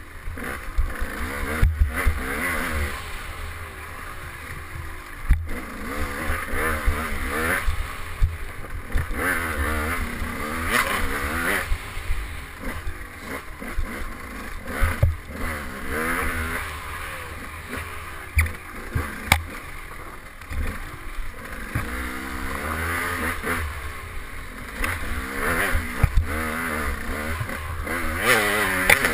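KTM 200 XC two-stroke dirt bike engine revving hard, its pitch rising and falling again and again as the rider works the throttle, with sharp knocks and clatter from the bike jolting over the trail.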